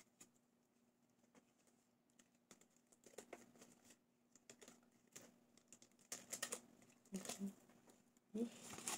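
Faint handling sounds: soft clicks and taps of fingers working at a small black jewelry case and its tie, sparse at first and busier from a few seconds in.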